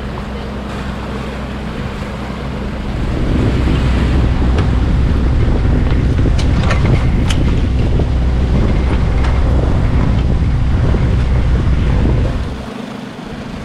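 Wind buffeting the microphone over water rushing past a sailboat's hull, with a low steady hum underneath. It grows louder about three seconds in, with a few sharp clicks around the middle.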